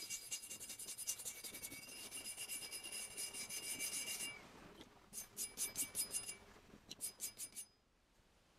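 Abrasive stick scrubbing rust off an old axe blade under water: fast rasping strokes with a thin ringing tone over them for about four seconds, a short pause, then two brief runs of quick strokes before it stops near the end.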